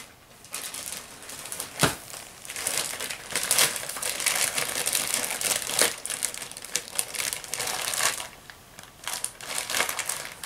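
Plastic bags and packaging crinkling and rustling as items are handled and packed into a suitcase, with many small crackles and one sharp click about two seconds in.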